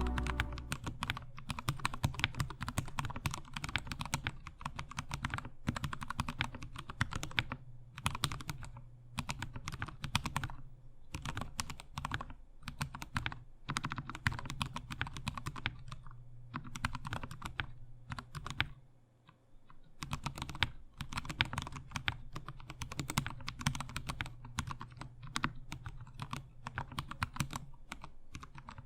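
Typing on a GK64 mechanical keyboard with lubed Gateron Brown tactile switches, lubed and clipped stabilisers and foam inside the case: a fast, irregular run of key clicks with a brief pause about two-thirds of the way through.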